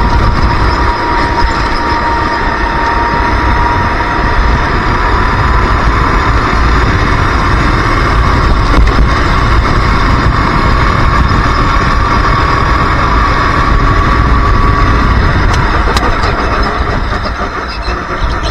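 Racing kart's engine at high revs under full throttle, heard from the driver's seat, its pitch climbing slowly as the kart gathers speed. Near the end it drops away as the kart slows for a corner.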